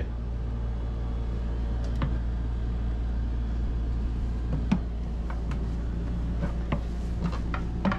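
Steady low mechanical hum, with a few scattered footsteps and knocks on steep wooden stairs as people climb them.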